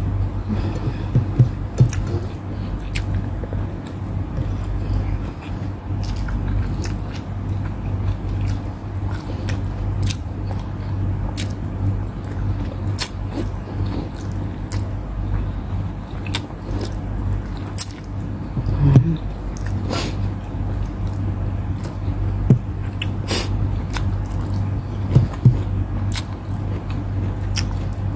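Close-up chewing and biting of chicken wings and rice eaten by hand, with scattered short clicks and smacks of mouth and fingers. A steady low hum runs underneath.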